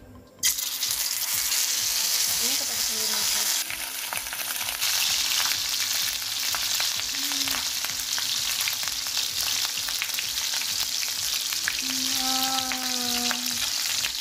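Pieces of pre-cooked spiced village chicken (ayam kampung ungkep) frying in hot oil in a pan: a loud sizzle starts suddenly about half a second in as the chicken goes into the oil, then carries on as a steady hiss full of spitting crackles.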